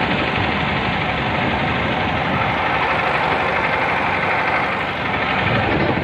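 The engine of a wooden river boat running steadily under way, a continuous rapid chugging clatter with no change in speed.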